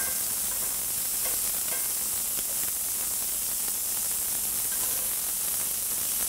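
Scallops searing in very hot safflower oil in a cast-iron skillet: a steady, high sizzle. A few faint clicks come as metal tongs turn them.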